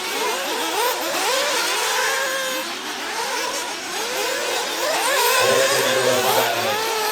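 Several 1/8-scale nitro buggy engines screaming around a dirt track together, their high-pitched whines overlapping and rising and falling as the cars accelerate and brake.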